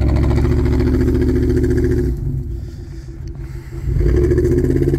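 Pickup truck engine revving hard under load while a snow-stuck truck is pulled out on a tow strap. It runs loud for about two seconds, eases off, then rises again near the end.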